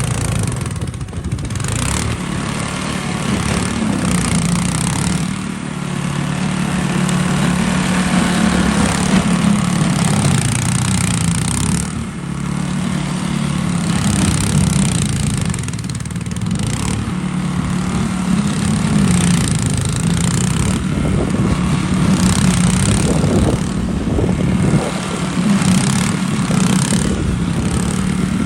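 Small petrol engine of a YARDMAX YB4628 single-stage snow thrower running steadily at working speed, with its level dipping briefly a few times.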